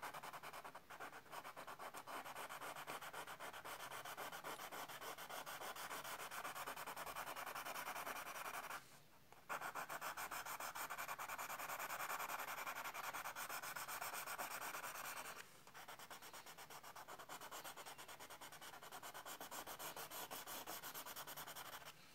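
White colored pencil scratching on tan card in quick, dense strokes, drawing a highlight line along the edge of a face. The strokes stop briefly about nine seconds in and carry on more softly after about fifteen seconds.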